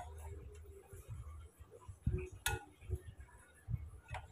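A few faint, sharp clicks and taps from a small circuit board and its wires being handled and fitted inside an open power mixer's metal case. The clearest click comes about two and a half seconds in, another near the end.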